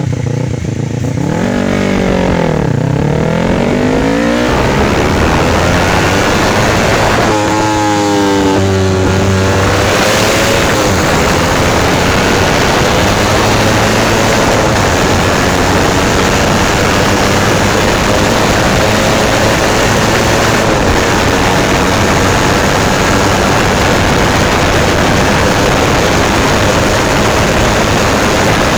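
Yamaha YZF-R25's parallel-twin engine through an Akrapovič exhaust. The engine note dips and climbs again, then falls away in steps. From about ten seconds in, a loud steady rush covers it, with the engine note rising slowly underneath.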